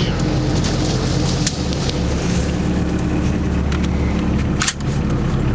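Sherp amphibious ATV's diesel engine running steadily while branches scrape and snap against the vehicle, with one sharp crack near the end.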